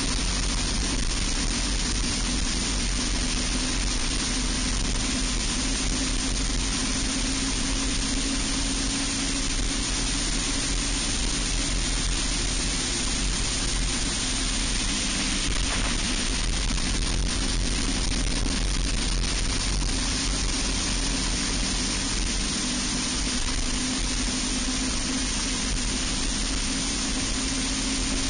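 Onboard sound of an enduro racing kart at speed: its Briggs & Stratton Animal single-cylinder four-stroke engine running hard near full throttle, its pitch dipping and picking up again through the lap, under heavy wind rush on the camera.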